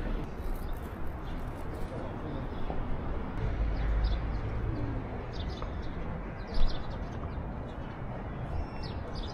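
Birds chirping in short scattered calls over steady outdoor street noise, with one brief thump about two-thirds of the way through.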